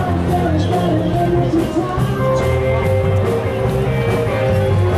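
Rock-and-roll music playing loudly, with a steady drum beat and long held notes.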